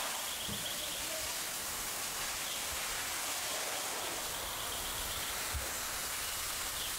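Steady hiss of a fire hose's water spray driving into a burning building, with a low thump late on.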